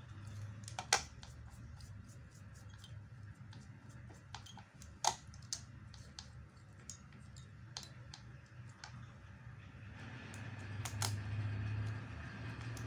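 Scattered small clicks and taps of a mobile phone's circuit board and small parts being handled on a bench, the two loudest about a second in and about five seconds in. A low steady hum runs underneath and grows louder near the end.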